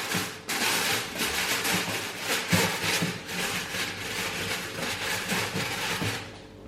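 Aluminium foil crinkling and rustling as it is pressed and shaped into an air fryer basket, a dense crackle that stops about six seconds in.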